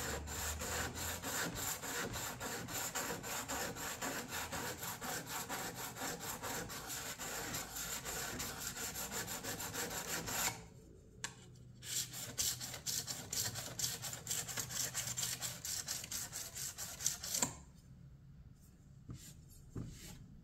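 Steel blade rubbed back and forth on a diamond sharpening stone wetted with WD-40, honing the edge in quick, even scraping strokes. There are two spells: a long one, a short pause about ten seconds in, then a shorter one that stops a few seconds before the end.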